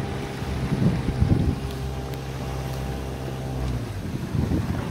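Boat engine running steadily, then cutting out near the end, with wind gusting on the microphone.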